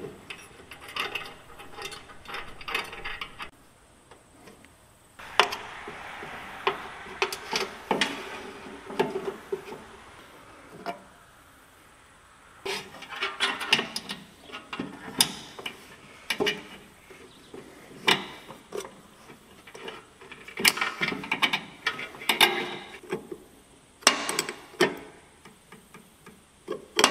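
Irregular metallic clicks, clanks and scrapes of hand tools and hardware as a battery is fitted into a steel battery box, its hold-down bar and a cable terminal fastened with a wrench.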